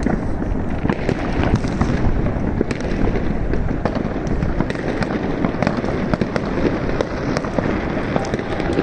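Fireworks: a dense, unbroken crackle of many overlapping bangs and pops, many rockets and firecrackers going off at once.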